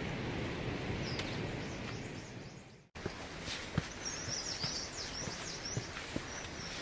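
Hikers' footsteps and backpack rustle on a forest trail, with a bird chirping in quick high notes for a second or two in the second half. The sound drops out for an instant about three seconds in.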